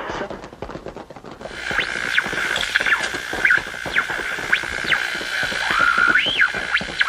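Old radio static: dense crackling, joined about a second and a half in by a steady high whistle with repeated whistles swooping up and down over it.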